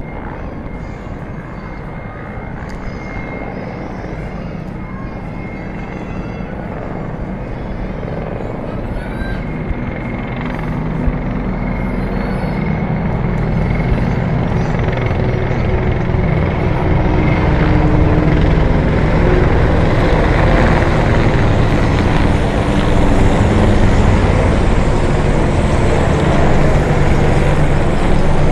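Several helicopters flying over together. The beat of their rotors and engines grows steadily louder as they come closer, and is loudest in the second half.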